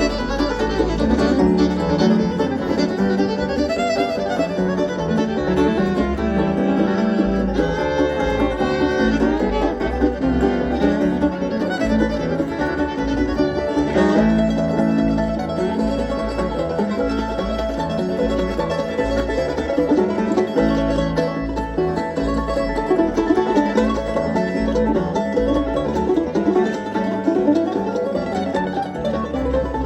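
Bluegrass string band playing an instrumental passage, with fiddle and banjo over guitar and a steady bass pulse.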